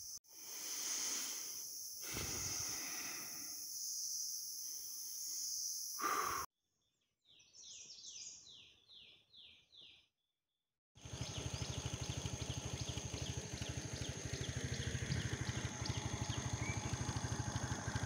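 Forest ambience with a steady high-pitched drone. Partway through, a bird gives a quick run of about seven descending notes. Near the end, a motor scooter's small engine idles with a fast, even pulse under the same high drone.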